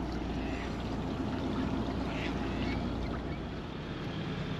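Catamaran's engine running steadily under way, a low hum under an even wash of water noise.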